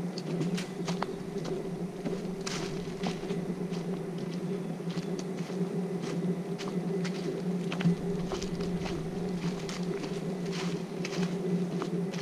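A hiker's footsteps as irregular light clicks and scuffs, over a steady low buzzing hum.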